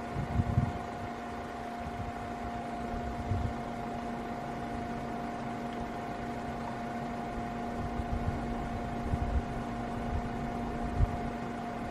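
Steady mechanical hum with two constant pitches, one low and one higher, under low gusts of wind rumbling on the microphone that are strongest about half a second in and again near the end.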